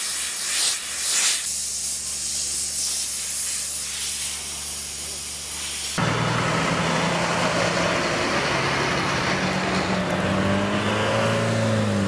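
A push broom sweeps debris across asphalt in a few scraping strokes over a steady hiss. About halfway through a heavy lorry's diesel engine takes over with a steady low drone that rises slightly in pitch near the end.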